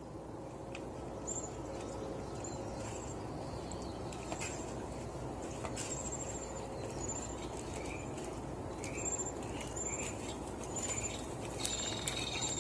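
Outdoor background of steady low noise with short, high bird chirps scattered through it.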